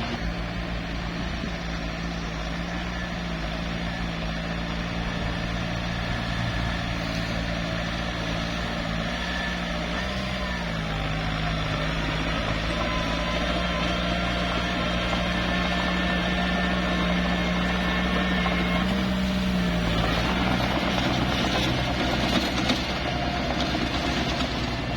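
Small bulldozer's diesel engine running steadily. Its pitch dips briefly about ten seconds in, rises and falls again near twenty seconds, and is followed by a noisier stretch over the next few seconds.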